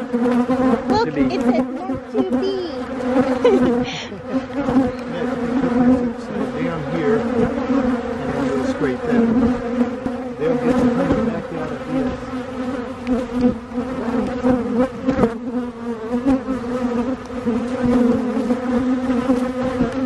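Many honey bees buzzing in a steady drone as they fly around an opened hive. The bees are agitated and defensive, cranky because of a nectar dearth.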